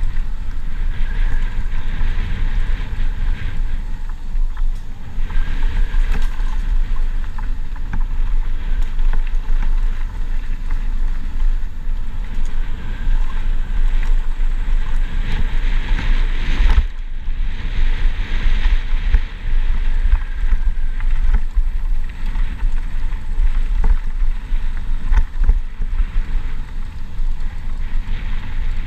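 Wind buffeting the microphone over a steady rush of flowing creek water, with a brief break a little past the middle.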